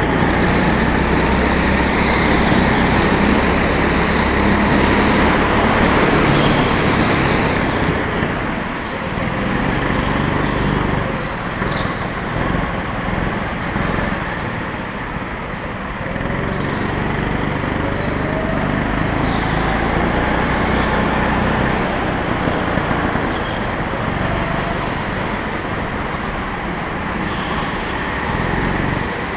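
Go-kart engine heard from onboard, running hard round the laps. Its level dips for several seconds partway through, then the pitch climbs again as it picks up speed.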